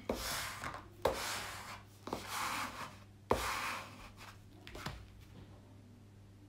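A white plastic block swept hard across the plastic film of a diamond-painting canvas to press it flat: four rubbing strokes about a second apart, most starting with a light knock as the block lands, then quieter after about four seconds.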